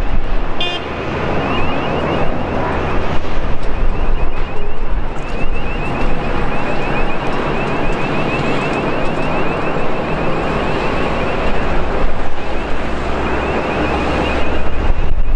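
Boeing 787-8 airliner on short final to landing, its jet engines making a steady, broad roar that swells a few seconds in and again near the end, mixed with wind rumble on the microphone.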